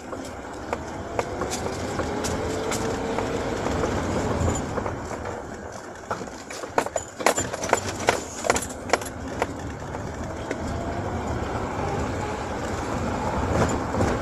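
Car engine and road noise heard from inside the cabin, the engine note rising slowly as the car pulls along. A cluster of sharp clicks and knocks comes about halfway through.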